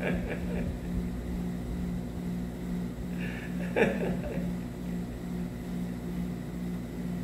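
A steady low hum with room noise in a pause between prayer lines, broken by a brief vocal sound about four seconds in.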